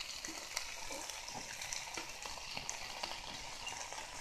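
Chicken pieces with red pepper and onion frying in oil in a pan: a steady sizzle with scattered small pops.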